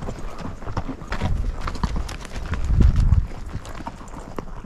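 Hooves of a ridden mule walking down a dirt mountain trail, an irregular run of clops and knocks, with a louder low rumble around three seconds in.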